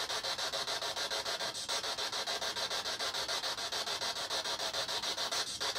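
Steady hiss of static chopped into quick, even pulses, roughly eight a second, from a handheld ghost-hunting device left running.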